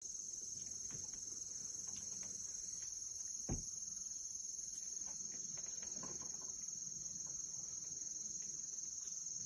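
Steady insect chorus, a constant high-pitched trill, with one dull thump about three and a half seconds in and a few faint clicks.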